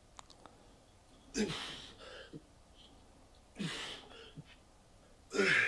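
A man's forceful grunting exhales, three times about two seconds apart, each falling in pitch: a weightlifter breathing out hard on each rep of a seated machine row.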